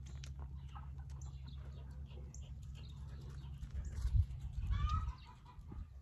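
Birds calling in short chirps over a steady low engine hum, with a few low thumps about four to five seconds in.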